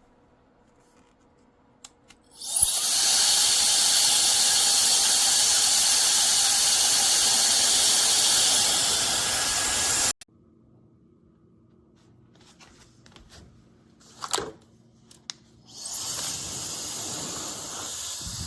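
High-speed brushless hair dryer starting after a couple of clicks, running with a loud rush of air and a motor whine for about seven and a half seconds, then cutting off abruptly. A few more clicks follow, and near the end it starts again, somewhat quieter.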